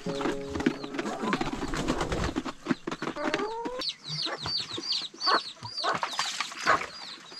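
Chickens: many short, high peeps in quick succession, typical of chicks, with a hen clucking among them, mostly in the second half. The first few seconds hold a lower, held pitched sound that rises in pitch just before the peeping begins.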